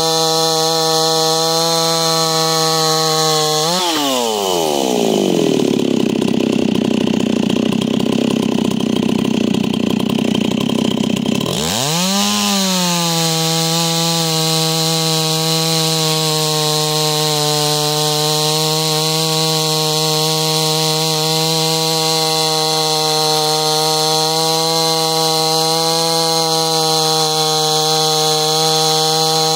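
Stihl MS 260 Pro two-stroke chainsaw with an opened-up muffler, running a single-raker Stihl 33RD3 carbide chain, at high revs. About four seconds in the engine pitch falls sharply and stays low and rough for about eight seconds as it is loaded in the cut. It then climbs back up and runs on at steady high revs.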